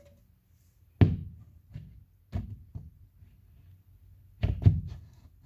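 Particleboard panels of a flat-pack TV stand being knocked and pressed onto their fittings: a handful of dull wooden thuds and knocks, the loudest about a second in and a quick cluster near the end.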